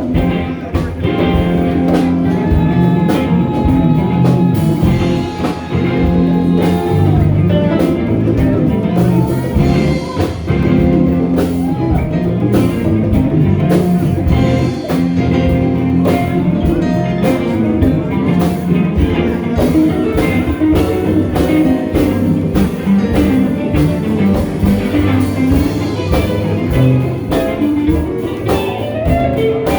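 A band playing a bluesy number on guitar with a drum kit keeping a steady beat.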